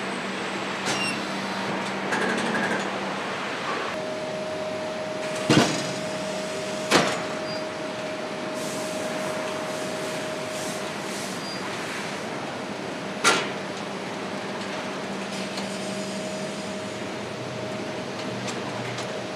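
Engine block foundry machinery running with a steady hum, a steady tone joining about four seconds in. Three sharp knocks cut through it: two a second and a half apart about a third of the way in, and one more past the middle.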